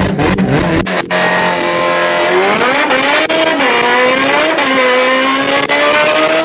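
Kawasaki H2's supercharged inline-four revving hard on a dynamometer pull. A low rumble drops away about a second in, then the engine note climbs, dips twice and rises steadily. This is its first pull on a half-alcohol fuel mix, which the tuner found running very rich.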